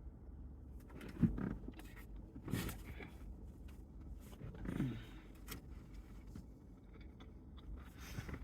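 A person chewing food close to the microphone, with scattered mouth clicks and three brief murmured hums that fall in pitch, over a steady low rumble.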